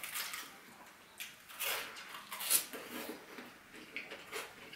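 Tableware being handled at a table: a handful of short, light clicks and taps about half a second to a second apart.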